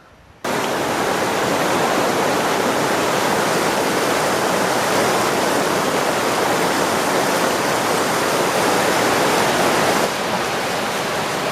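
River rapids rushing steadily: a dense, even sound of white water that starts abruptly about half a second in and eases a little in level about ten seconds in.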